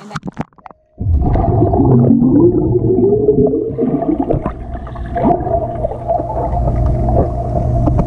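Splashing as the camera dips below the pool surface about a second in, then the muffled underwater sound of a swimming pool: a dense low rumble with a steady hum, broken by bubbling and wavering, warbling tones.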